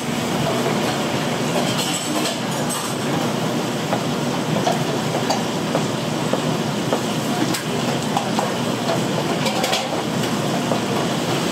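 Food deep-frying in hot oil: a steady crackling sizzle, with a few short metal clinks scattered through it.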